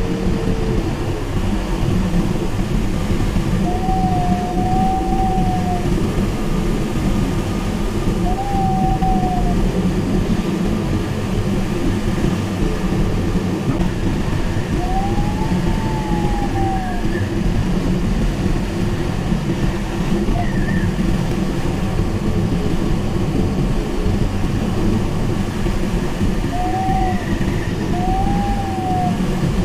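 Steady rush of airflow inside the cockpit of a Mini Nimbus HS7 sailplane in flight. A few short electronic tones bend up and down in pitch, several seconds apart, typical of a glider's audio variometer signalling changes in lift.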